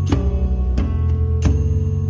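Background music: struck pitched notes about every three-quarters of a second over a steady low bass.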